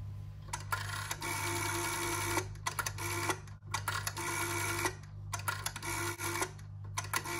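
Black Ericsson rotary-dial telephone being dialled: the finger dial is wound round and let go several times, each release whirring and clicking as the dial runs back to rest, one digit after another.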